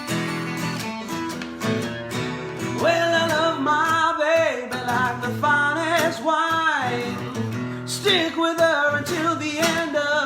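Guitar playing an instrumental break in a blues shuffle: strummed chords, then a lead line of bent, wavering notes from about three seconds in.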